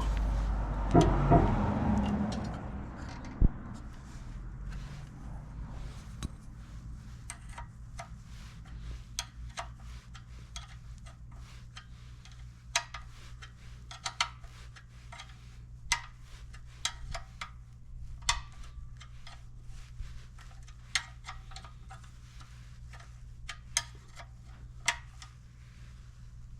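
Irregular light metallic clicks and clinks of small tools and parts being handled during repair work, over a faint low steady hum. A couple of louder knocks come near the start.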